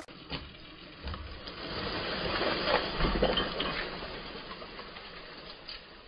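A cut tree falling: a swelling rush of leaves and branches sweeping through the air and into the undergrowth, with a low thud about three seconds in as it lands, then the rustle fades away.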